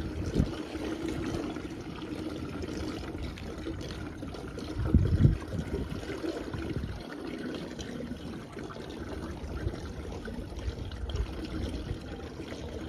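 Water running and splashing in an outdoor hot-spring pool, a steady wash of noise with a brief louder low surge about five seconds in.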